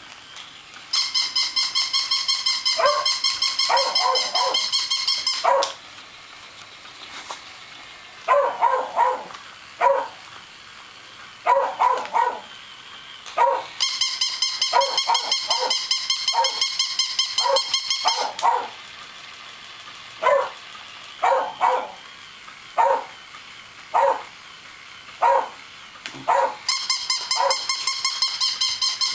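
A battery-powered toy dog playing its electronic bark in three long runs of rapid, high, evenly repeated yaps. Between the runs a real dog barks singly, about once a second.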